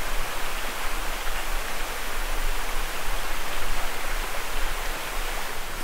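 Steady rush of flowing river water from an unfrozen stretch of a small forest river.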